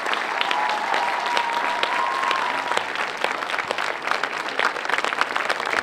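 Crowd applauding: dense clapping, with a long held high note sounding over it in the first half.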